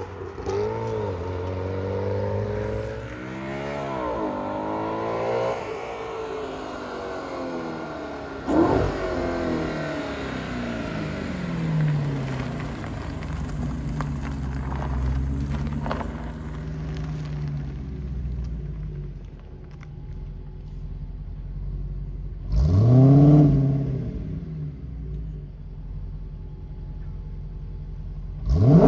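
Car engines revving and accelerating away: a car's engine note rises and falls through gear changes as it drives off, then a black Audi coupe's engine runs steadily, is revved hard once about two-thirds of the way in, and revs up sharply to pull away at the end.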